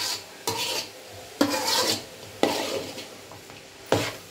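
Flat metal spatula scraping and stirring grated carrot in a large aluminium kadai as it fries in ghee, five strokes about a second apart, each starting sharply and fading quickly.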